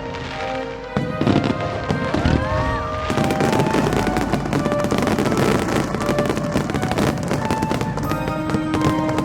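Aerial fireworks display: rapid bangs and crackling bursts, with a couple of rising whistles about two seconds in, and the bursts growing denser from about three seconds. Music plays underneath.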